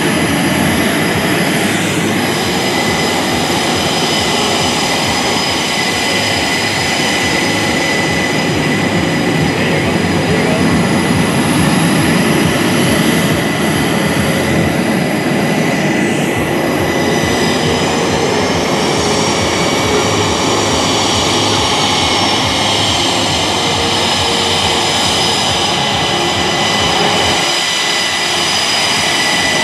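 F/A-18E/F Super Hornets' twin GE F414 turbofan engines at taxi power, a steady loud rush with a high whine, as the jets taxi past one after another. Some of the whining tones rise slightly about two-thirds of the way through.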